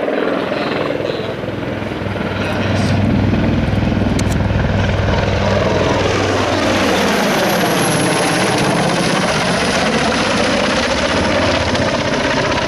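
NH90 military helicopter running on the ground: a steady, loud din from its twin turboshaft engines and rotor, with a faint high turbine whine that comes in about halfway through.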